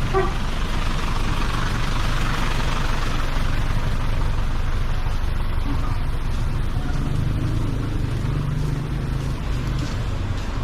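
A motor vehicle's engine idling, a steady low rumble under an even hiss.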